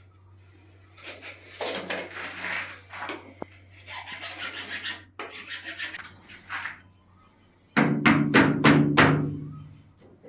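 Rubbing and scraping on plastic pipe, then a quick run of about six loud knocks with a short hollow ring near the end.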